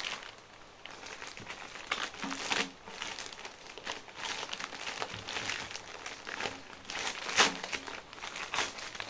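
Plastic courier mailer bag being handled and pulled open by hand: an irregular run of crinkling and crackling plastic, with a louder crackle about seven seconds in.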